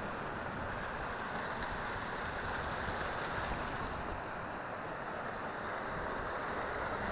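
Steady rushing of a large waterfall on a hill burn, with wind buffeting the microphone underneath.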